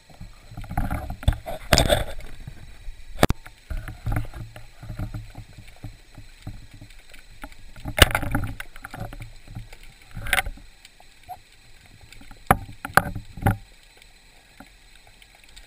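Underwater sound heard through a camera housing: irregular sharp clicks and knocks over low, rumbling water movement.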